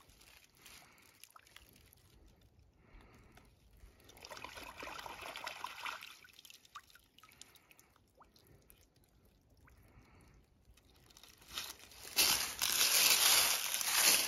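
Muddy puddle water sloshing and trickling as a pistol is dipped in and lifted out, mostly faint, with a louder stretch of noise about four seconds in and another near the end.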